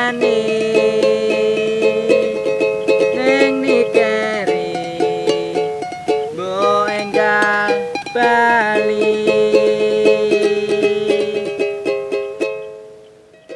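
Instrumental outro of a Javanese pop song: quick ukulele-like plucked-string strumming over held notes and a sliding melody line, fading out near the end.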